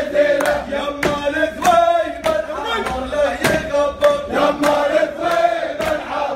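A group of men singing a celebration chant together, one sustained melody line with bending pitch, over steady rhythmic handclaps about three a second.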